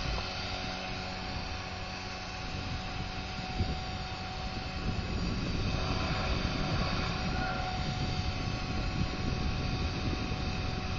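Align T-Rex 500 electric RC helicopter in flight: its motor and rotor make a steady whine of several held tones over a low rumble, growing a little louder about halfway through.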